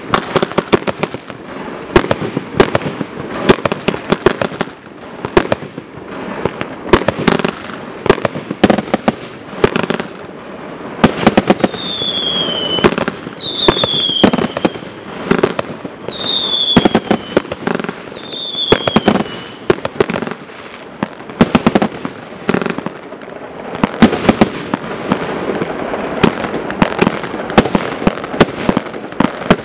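Dominator American Pride 138-shot fireworks cake firing in rapid succession: a steady run of sharp launch thumps and aerial bursts from its comets and chrysanthemum shells. Around the middle, a falling whistle-like tone sounds four times over the shots.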